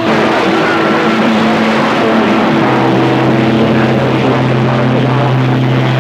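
CB radio receiver audio crowded with several stations keying up at once: overlapping carriers make steady droning hums and tones that come and go, with a stronger low hum coming in about halfway through.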